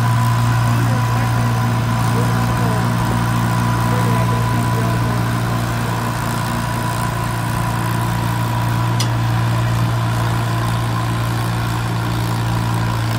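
A 1948 Cockshutt 30 tractor's engine running steadily under load as it drags a weight-transfer truck, holding one even pitch throughout. A faint click about nine seconds in.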